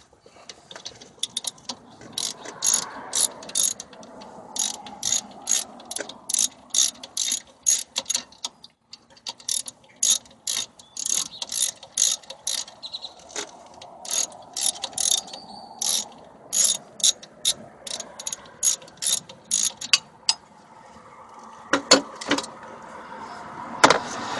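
Hand socket ratchet clicking in long runs as a brake caliper bolt is backed out, about two to three clicks a second with brief pauses, stopping near the end. Two sharper knocks follow near the end.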